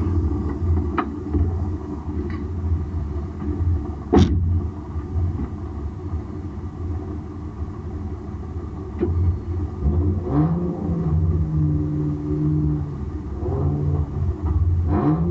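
BMW 328i's straight-six engine idling unevenly, heard from inside the cabin, with a sharp click about four seconds in. From about ten seconds in the throttle is blipped a few times, the revs rising, holding briefly and dropping back to idle.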